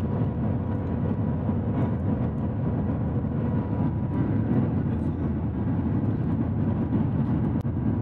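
Shanghai maglev train heard from inside the passenger cabin at speed: a steady low rumble with a faint steady whine above it. The train is running below its 400 km/h-plus top speed, which has been switched off.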